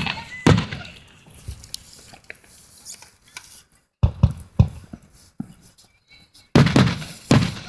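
Aerial fireworks shells bursting with booms: one about half a second in, a pair around four seconds in, a lighter one after, then a quick run of bursts near the end.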